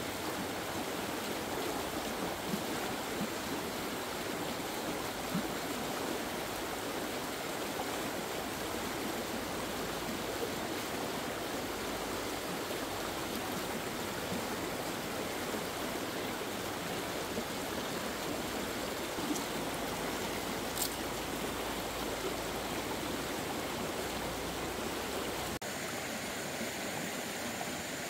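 Shallow, rocky stream flowing steadily over stones.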